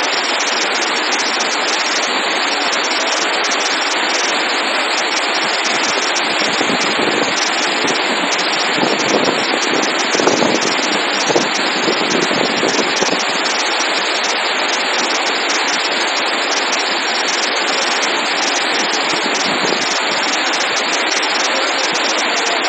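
Floodwater rushing through a dam's open spillway gates as a loud, steady noise, briefly louder and deeper for a few seconds in the middle.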